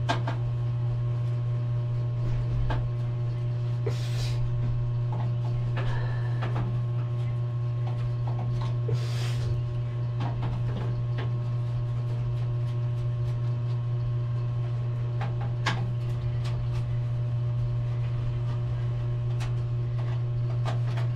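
A screwdriver clicking and scraping against screws and the sheet-steel frame of a desktop computer case, with two short rasps about four and nine seconds in, over a steady low hum.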